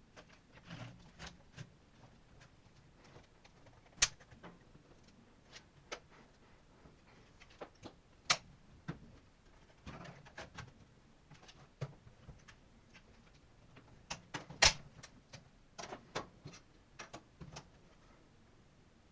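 Irregular clicks, taps and rustling from tools and plastic laptop parts being handled during disassembly, with three sharp, loud clicks spread through the stretch.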